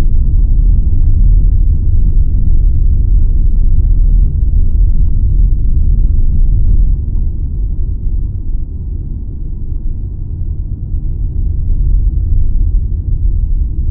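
Steady low rumble of road and wind noise from riding in a moving vehicle, easing a little about seven seconds in.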